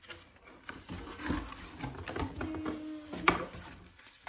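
Cardboard packaging and paper booklets being handled: uneven scraping and rustling of cardboard, with a sharp knock a little past three seconds in.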